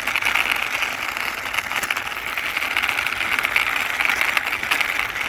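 Small plastic momentum (inertia) toy car pushed along by hand, its wheels and gearing giving a steady, fast rattling whir.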